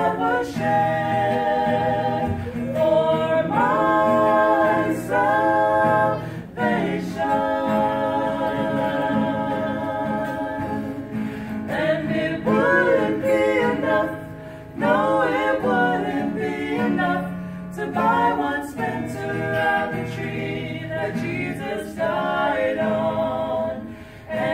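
Vocal trio of women's and a man's voices singing a gospel song in harmony, with an acoustic guitar accompanying.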